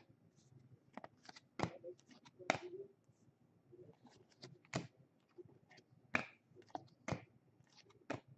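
Trading cards and pack wrappers being handled, giving scattered sharp clicks and short rustles, about a dozen in all.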